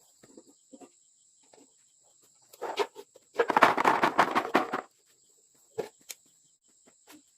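A dense rustling crackle lasting about a second and a half, with a few scattered clicks before and after, over a steady high insect trill.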